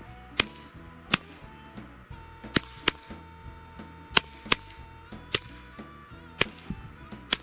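Suppressed .22 LR pistol shots: a Walther PPQ 22 firing subsonic rounds through an Innovative Arms Slingshot Ti suppressor, about nine sharp reports at an uneven pace, some in quick pairs. Low tone, a little deeper and more thud-like than other cans: not the quietest, but hearing safe.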